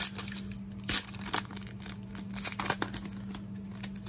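Foil wrapper of a Panini Prestige football card pack crinkling and tearing as it is ripped open by hand, in a run of sharp crackles, the loudest about a second in.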